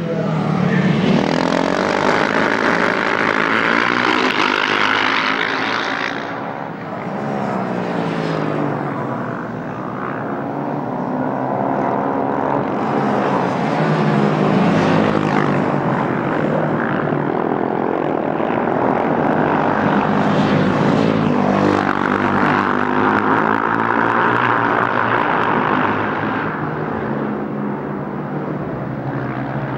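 A pack of KTM 690 Duke single-cylinder race bikes at racing speed, several engines droning together. Their pitches rise and fall as they pass and change revs, loudest in the first few seconds and again through the middle.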